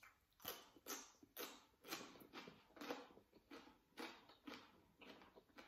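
Close-up crunching of a raw vegetable stick being chewed, crisp crunches coming about twice a second.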